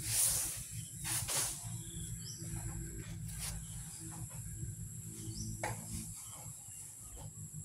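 Bull Asian elephant swinging its trunk and gathering grass, with two short hissing puffs about a second apart near the start, over a steady high drone of crickets.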